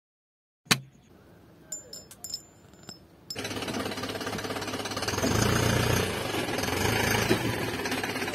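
Small battery-powered DC toy motor starting up with a fast buzzing rattle about three seconds in, after a single click and a few faint ticks.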